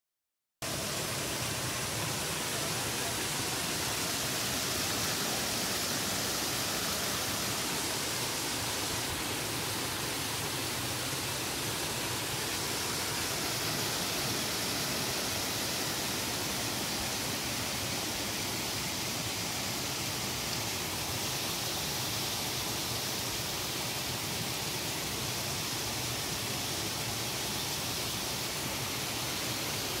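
Waterfall pouring over rock ledges: a steady, even rush of falling and splashing water.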